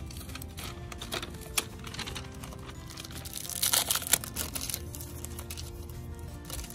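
Protective packaging paper and clear plastic wrap crinkling and tearing as they are peeled off a new kick scooter's deck and handlebar grips, with scattered sharp crackles and the loudest crinkling at about three and a half to four and a half seconds in. Background music plays throughout.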